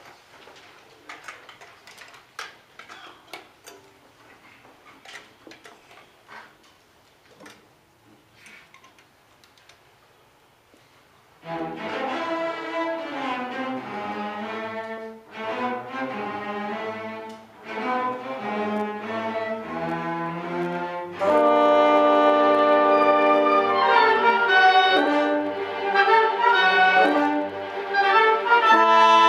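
Faint scattered clicks, then an orchestra led by violins starts playing about twelve seconds in. The full ensemble comes in louder at about twenty-one seconds, with sustained chords.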